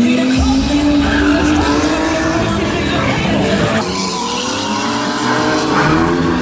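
Car engine revving, rising in pitch over the first couple of seconds, with tyres squealing and skidding on tarmac.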